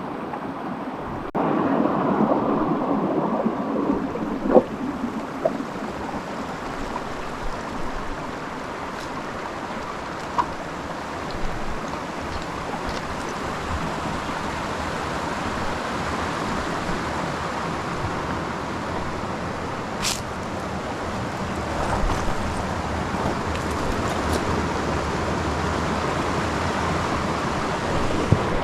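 Steady rush of water from the mountain stream and waterfall, getting suddenly louder just over a second in, with a few faint clicks over it.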